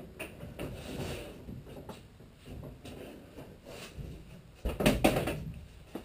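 A large plywood panel being handled and shifted into position on a wooden frame: uneven rubbing and light knocks of wood on wood, with one louder clatter about five seconds in.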